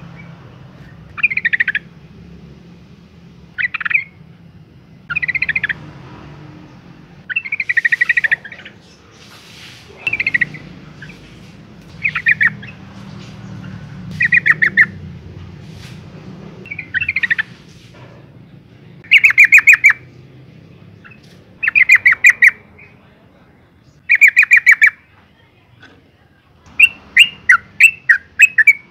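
Yellow-vented bulbul calling in short bursts of rapid, bubbly notes, repeated every couple of seconds and louder from about two-thirds of the way through. Near the end they break into a quicker run of separate notes. The uploader presents it as a female in breeding condition calling to a male.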